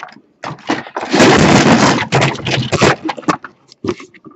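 Cardboard toy box and its packaging handled close to the microphone: loud scraping and rustling for about two seconds, with scattered knocks before and after.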